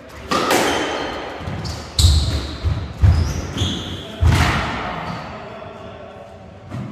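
Squash ball being struck by rackets and smacking off the court walls in a rally, a sharp hit every second or so, each one echoing around the court.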